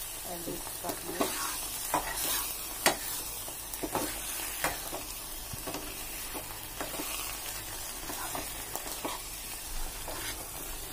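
Steel ladle stirring palak paneer in a metal pan, with scattered scrapes and knocks of the ladle against the pan, the loudest about three seconds in, over a steady sizzle of the spinach and paneer frying.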